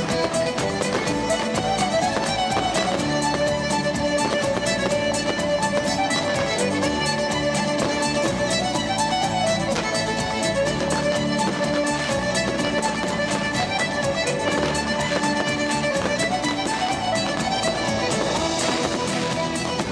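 Music with a fiddle carrying the melody.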